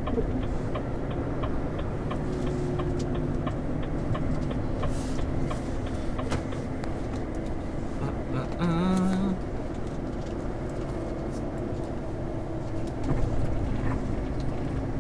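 HGV cab interior: the truck's diesel engine and road noise drone steadily as it drives. The turn indicator clicks at an even pace for the first few seconds, then stops. A brief tone sounds about halfway through.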